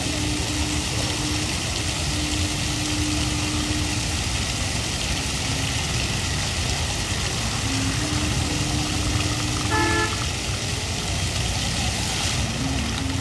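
Water jets of a large illuminated fountain spraying and splashing back into the basin: a steady rushing hiss. A low steady hum fades in and out under it, and a short pitched sound with several tones stands out about ten seconds in.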